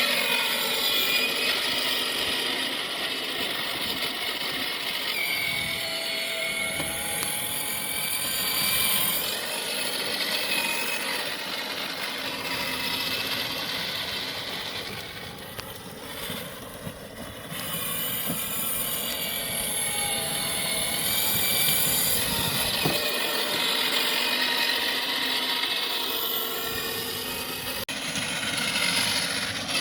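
Electric motors and plastic gearboxes of a kids' ride-on Cybertruck, run on a drill battery, whining as it drives. The pitch rises and falls as it speeds up and slows, and it drops off briefly about halfway through.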